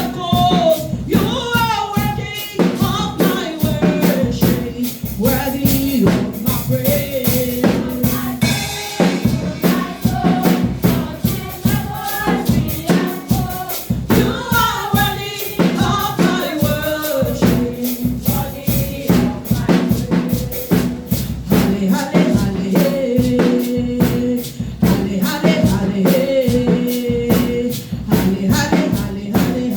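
Worship song: a sung lead melody over a drum kit and band with a steady, busy beat.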